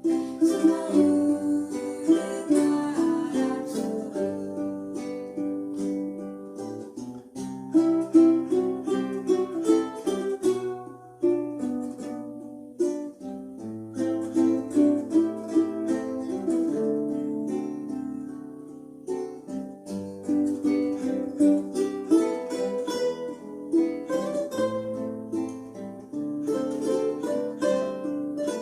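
A ukulele ensemble playing an instrumental passage: plucked and strummed ukuleles carrying a slow melody over a lower bass line.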